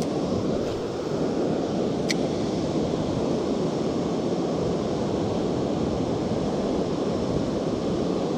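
Fast-flowing river rapids rushing steadily.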